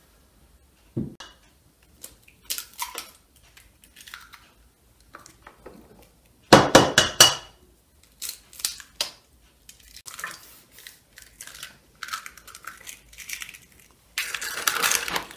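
Eggs cracked one after another on the rim of a stainless steel mixing bowl: a series of sharp taps and shell crunches, with the loudest cracks about halfway through.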